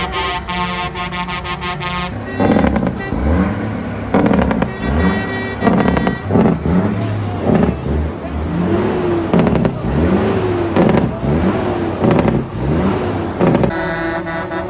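A multi-tone air horn blares one steady chord for about two seconds. A vehicle engine is then revved again and again, about a dozen quick rises and falls in pitch, roughly one a second. Near the end the steady horn chord comes back.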